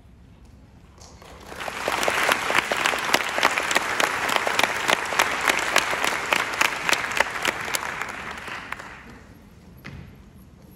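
Audience applauding at the end of a choir's song: the clapping starts about a second and a half in, stays full and dense for several seconds, then dies away after about seven seconds.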